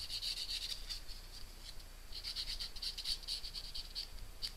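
Stampin' Up marker tip scratching along the edge of a cut-out paper letter in many quick, short strokes, faint.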